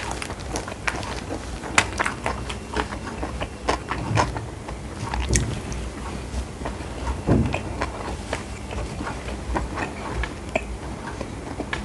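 A person chewing and biting food close to the microphone, with many small irregular sharp clicks and mouth noises.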